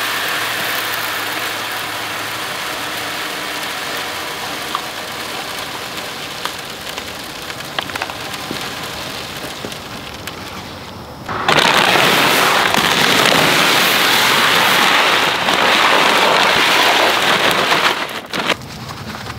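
Granular fertilizer and seed pouring from a bag into a plastic spreader hopper, a steady pattering hiss like rain on a surface that slowly tapers off. About halfway through a second, louder pour starts and runs for around six seconds, ending with a few light clicks.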